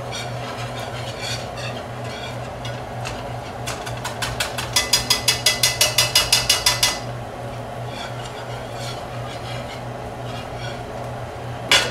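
Wire whisk stirring a butter-and-flour roux in a nonstick frying pan. About four seconds in, the whisk taps quickly and evenly against the pan, about six taps a second for roughly three seconds, and one sharp knock comes just before the end.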